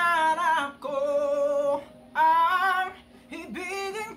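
A man singing in a high voice, holding long notes in about four short phrases with brief breaks between them.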